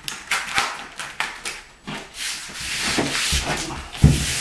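Hand pressing and rubbing a peel-and-stick edge strip down onto a primed floor along the wall: a run of short scuffing strokes, then a longer sweeping rub of the hand over the floor, with a dull thump near the end.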